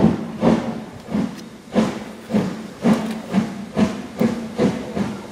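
Harz narrow-gauge Class 99 2-10-2T steam tank locomotive working hard as it starts a train away, its exhaust chuffing in strong even beats that quicken from under two a second to about two and a half a second as it gathers speed.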